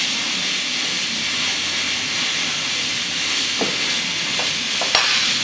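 Steady hiss throughout, with a few light knocks about three and a half to five seconds in, the last the loudest, as the rubber-coated end of a hammer handle presses a new mechanical seal into its pocket in the pump bracket.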